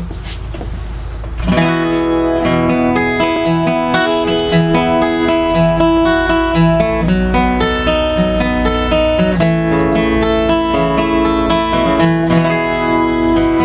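Martin D-16 acoustic guitar playing a strummed and picked intro, coming in about a second and a half in after a low rumble.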